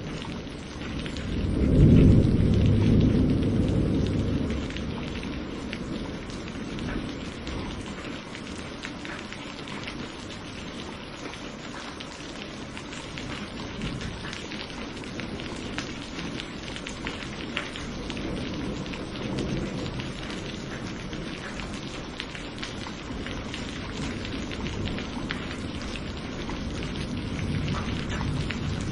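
Thunderstorm: steady rain falling with a patter of individual drops. A loud roll of thunder breaks out about two seconds in and fades over a few seconds, and fainter rumbles follow later.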